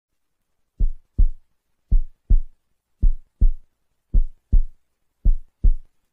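Heartbeat sound effect: five deep double thumps, lub-dub, about one pair a second.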